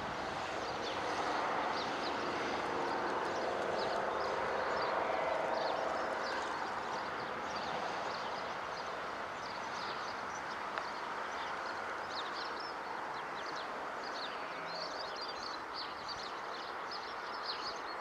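Distant English Electric diesel locomotive engine running, with a steady hum that is loudest in the first few seconds and then fades a little. Small birds chirp throughout.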